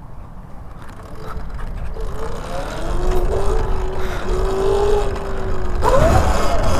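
A motorbike running, with a steady hum that rises slightly about two seconds in, then jumps and climbs sharply in pitch near the end as it speeds up, over a low rumble.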